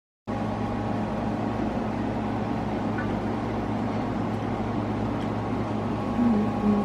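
A steady mechanical hum with a few held tones, starting abruptly a moment in.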